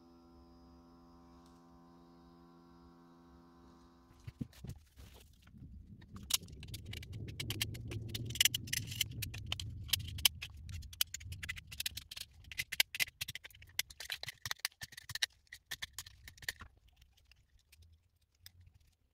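Quick small metallic clicks and clinks of split-ring pliers spreading steel split rings and working them onto the wire eyes of a resin stick-bait lure, lasting about ten seconds. A faint steady hum is heard for the first few seconds.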